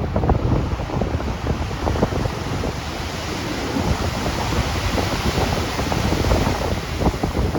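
Large Lake Erie storm waves surging and breaking ashore under gale-force wind, with heavy wind buffeting on the microphone.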